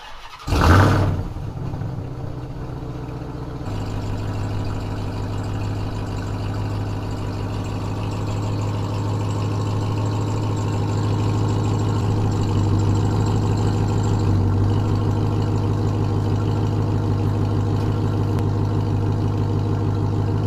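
Ram 1500 TRX's supercharged 6.2-litre V8 starting with a brief flare of revs, then idling steadily as the truck backs slowly. It gets a little louder about four seconds in.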